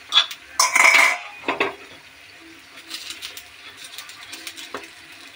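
A spoon scraping and clinking against the cups of an appe pan as the appe are turned over, loudest in a cluster of strokes in the first two seconds, then only light clicks.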